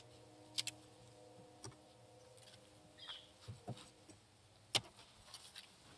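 Faint hum of honey bees, fading about halfway through, with several sharp clicks and taps from the wooden hive frames being handled.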